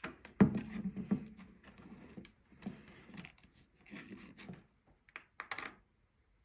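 Basket reed being handled and woven: one sharp knock about half a second in, then irregular rubbing and scraping of the reed strands, with a few quick clicks near the end.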